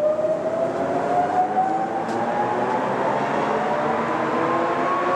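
LeBlond 31 x 108 engine lathe running with its large face plate spinning, set to its 400 RPM top speed. A steady mechanical whine rises slowly in pitch throughout, as the heavy spindle winds up to speed.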